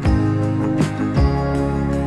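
Background music: slow, gentle instrumental track with sustained chords and a soft beat.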